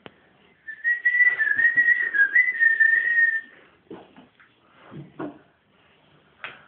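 A high whistle held for nearly three seconds, wavering slightly and dipping briefly in pitch partway through, over a light hiss.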